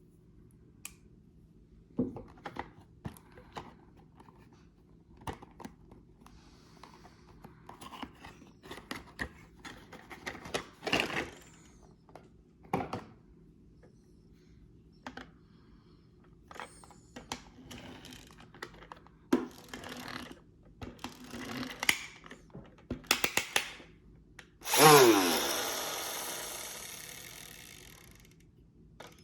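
Packaging being handled during an unboxing: scattered clicks, knocks and rustles of a box and its contents. Near the end comes a louder sound that drops in pitch at its start and fades away over about three seconds.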